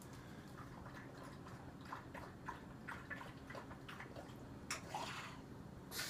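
A pug lapping water from its floor bowl: faint, irregular wet clicks and slurps.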